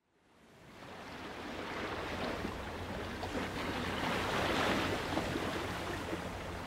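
Ocean surf washing onto a beach: a steady hiss of waves that fades in from silence over the first couple of seconds and swells gently around the middle.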